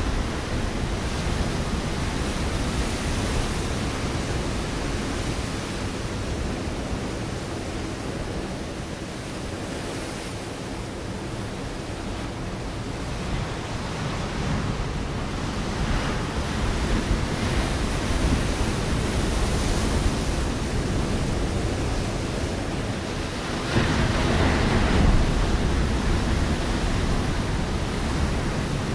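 Ocean waves breaking on a rocky shore: a continuous surf rush that eases off for a while mid-way, then swells again, with a louder wave crashing near the end.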